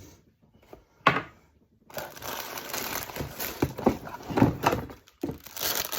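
Crinkly packaging being handled and unwrapped: a dense rustle of crinkling with sharp crackles starting about two seconds in, pausing briefly near the end.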